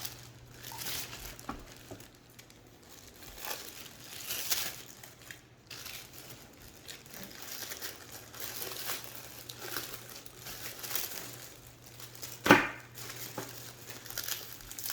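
Packaging crinkling and rustling in irregular bursts as the space heater is handled and unwrapped, with one sharper, louder knock about twelve seconds in.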